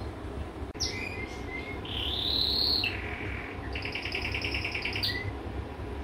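Male canary singing a short phrase: a few high chirps and a longer arching note, then a fast, even trill about four seconds in.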